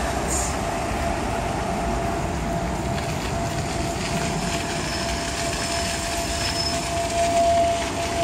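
Steady rolling and wind noise of a bicycle ride along a paved bike lane, with a thin steady whine that grows louder near the end.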